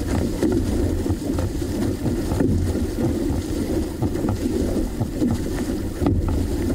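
Wind buffeting the microphone and water rushing along the hull of a six-person outrigger canoe under paddle, with faint splashes of paddle strokes now and then.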